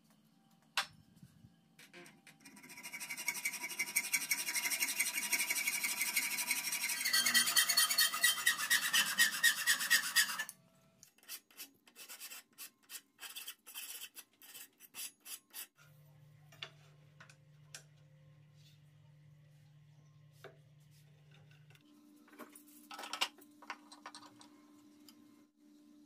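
Hand abrading the end of an aluminium bar: rapid back-and-forth rubbing strokes starting about two and a half seconds in, louder after about seven seconds, stopping at about ten seconds. Then come lighter, separate strokes until about sixteen seconds in.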